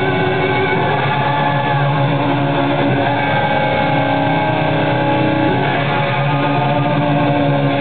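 Live rock band playing a ballad, led by guitar holding long steady notes over the band, amplified through an arena PA and recorded from within the crowd.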